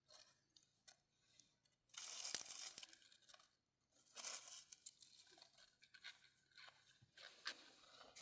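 Close rustling and crackling in bursts, the loudest about two seconds in and again about four seconds in, with scattered small clicks between.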